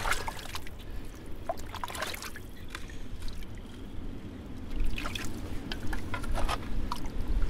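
Muddy water in a flooded privy pit sloshing and splashing as a gloved hand and a shovel stir through it, with irregular splashes and scrapes, busier in the last couple of seconds.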